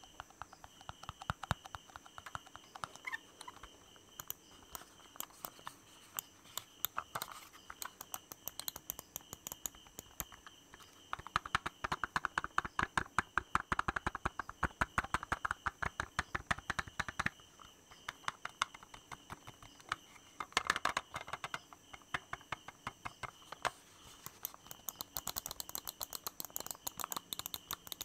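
Very fast, aggressive tapping: a dense, unbroken run of quick clicks, louder for several seconds near the middle.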